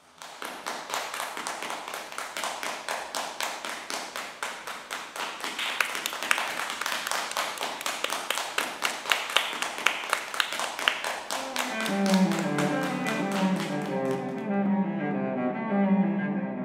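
Applause from a small audience: quick, dense hand-clapping that stops suddenly about fourteen seconds in. About twelve seconds in, a cello begins a slow phrase of low bowed notes that carries on after the clapping ends.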